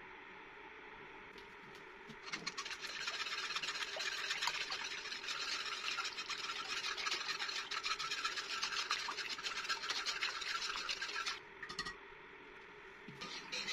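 Wire whisk beating mango purée in a pot: a fast, scratchy rasp of the wires against the pot that starts about two seconds in, breaks off briefly near the end and starts again.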